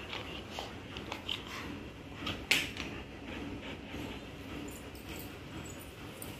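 Golden retriever nosing and mouthing at bedding, making small mouth clicks and cloth rustles, with one sharper click about two and a half seconds in.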